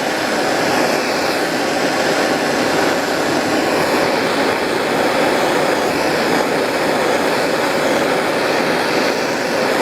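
Propane torch flame burning steadily with a loud, even hiss, heating a brass spout for soldering.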